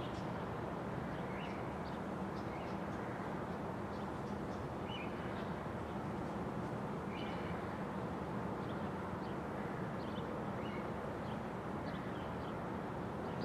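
Steady outdoor background noise with short, faint bird chirps every second or two.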